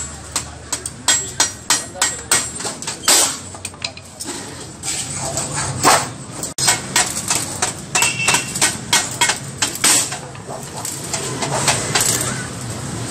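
Sharp metal strikes, about three or four a second, for the first few seconds. After a cut, stick welding on an engine oil pan, a crackling hiss that pulses in loudness.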